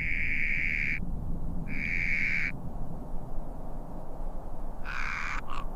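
Three hoarse, breathy calls of a large predatory bird, the film's terror bird. The first lasts about a second, a second call comes about a second later, and a shorter one comes near the end, all over a steady low rumble of ambience.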